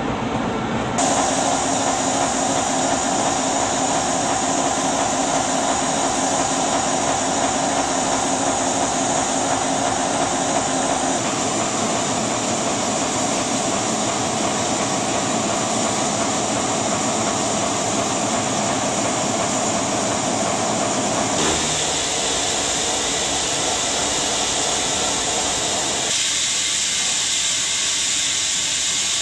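Russian E-class 0-10-0 steam locomotive hissing steam steadily, the hiss changing character a few times.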